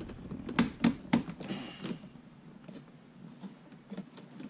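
Hands adjusting a gauge that is press-fitted in a plastic A-pillar gauge pod: three sharp plastic clicks in the first second or so, then a short rustle and a few faint taps of handling.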